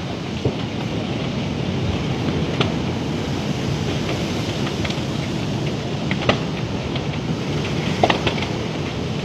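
Steady low wind noise buffeting the microphone on a stormy seafront, with a few short sharp cracks scattered through, the loudest near the end.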